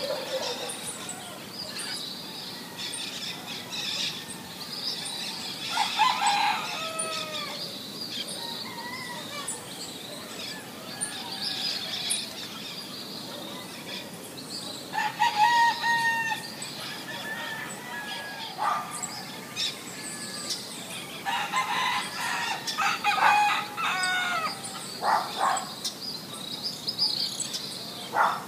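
A rooster crowing several times, each crow a drawn-out call, over a steady high chirring of insects and scattered bird chirps.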